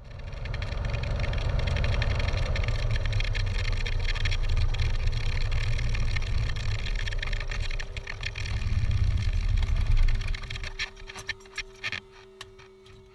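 Cessna 182P Skylane's 270-horsepower piston engine running at low power, swelling briefly about ten seconds in and then shutting down. The propeller winds down with a few last uneven beats, leaving a faint steady whine.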